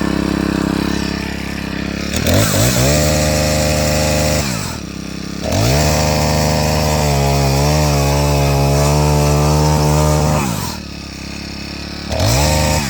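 Senix four-stroke gas chainsaw running. It idles, then is revved up and held three times, dropping back to idle between revs; the pitch wavers during the longest rev.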